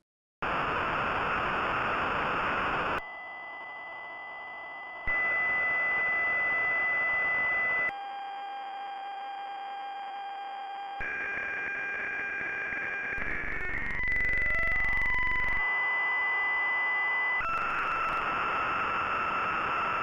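Synthesized sound of Burning Ship fractal orbits played as audio. It switches abruptly every few seconds between a noisy hiss, from orbits in stable chaotic regions, and steady high beeping tones, from orbits that settle into a repeating cycle. Around the middle, several tones bend and glide together into one.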